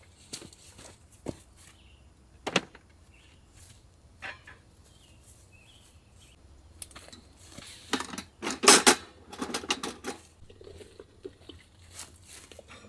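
Camp cookware and utensils being handled: scattered light clicks and knocks, with a louder burst of clattering about eight seconds in.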